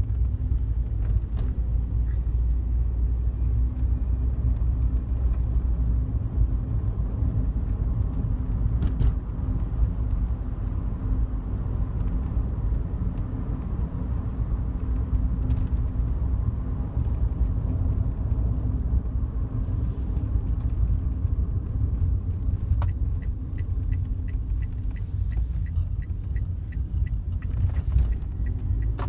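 Daihatsu Wake cabin on the move: steady low road and engine rumble, with scattered sharp clicks of the rattle (buzz) from the front of the passenger side. Near the end comes a quick run of even ticks, about three a second.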